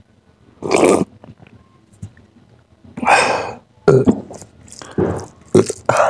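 A man belching loudly through a mouthful while eating curry and rice by hand, just after a drink from a steel mug: one belch a little under a second in and another about three seconds in, then a few shorter mouth sounds.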